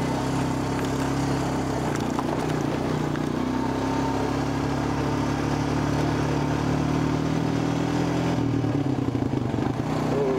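ATV engine running at a steady, moderate speed while riding over a dirt road.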